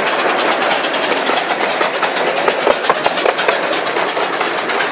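Small passenger ride train running along its track: a steady rumble and rattle, with many fast, irregular clicks.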